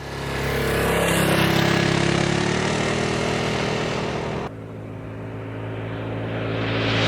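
2015 Honda Forza 300 scooter's single-cylinder engine running through its factory exhaust, in two clips: the sound cuts to a second clip about four and a half seconds in, which grows steadily louder toward the end.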